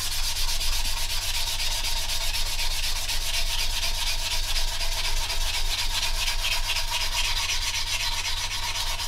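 Fine-grit sanding sponge rubbed quickly back and forth over a putty-filled seam on a plastic model aircraft fuselage, a dry scratchy rasp of several strokes a second. This is the higher-grit stage, smoothing the seam to a rounded blend.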